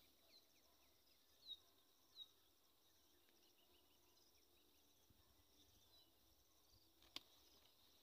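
Faint outdoor ambience of a steady insect trill with a few brief falling bird chirps, two of them louder about one and a half and two seconds in. A single sharp click comes near the end.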